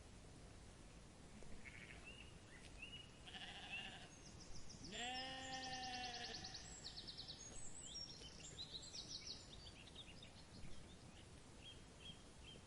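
A sheep bleats once, a long wavering call about five seconds in. Birds chirp and trill around it.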